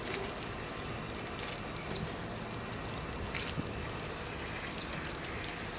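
Outdoor beach shower running, its water spraying onto a small dog and splashing on the concrete slab below; the spray starts right at the beginning.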